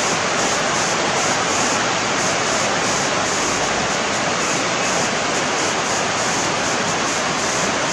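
Steady rushing of running water: an even, unbroken noise with no changes.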